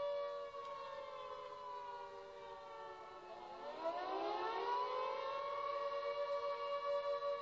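Siren wailing with several tones sounding together: the pitch slowly sinks, then climbs again about three and a half seconds in and holds steady.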